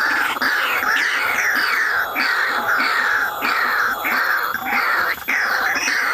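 White-breasted waterhen calling: a run of harsh notes repeated about twice a second, each falling in pitch.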